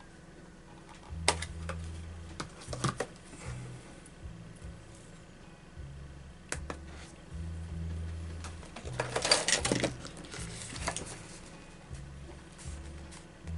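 Irregular clicks and knocks of small hard objects being handled, with a short burst of rattling clicks about nine seconds in, over on-and-off low rumble.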